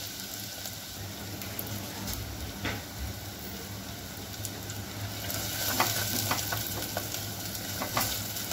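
Finely chopped onion freshly added to hot oil, sizzling steadily in a clay pot. In the second half a wooden spatula stirs it, knocking and scraping against the pot in a series of short clicks.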